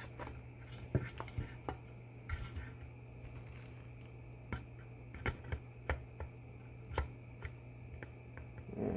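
Scattered light clicks and taps of a balisong (butterfly knife) being handled and tried in a desk pencil stand, with a couple of brief rustles in the first few seconds.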